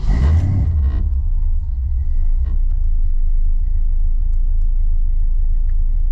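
1981 Chevrolet C10 pickup's engine starting up and settling to a steady low idle, heard from inside the cab: a burst of noise in the first second as it catches, then an even rumble. It is running on freshly fitted spark plugs and new oil.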